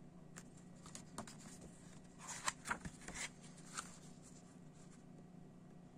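Paper rustling as a glossy CD booklet page is turned: a short cluster of crinkles and flicks about two seconds in, lasting under two seconds, over a faint steady hum.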